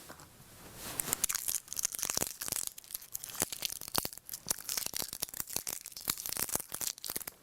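Battery packaging being torn open by hand: an irregular run of tearing and crinkling crackles.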